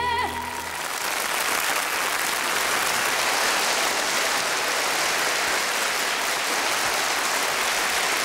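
A held, vibrato-laden sung note ends just after the start, then an audience applauds steadily, as at the close of a live performance of a song.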